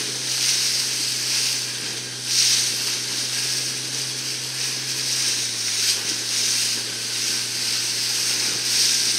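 Wind and water spray rushing past a fast-moving motorboat, with the boat engine's steady low hum underneath. The rush swells about two seconds in and again near the end, and the engine hum drops slightly in pitch about five seconds in.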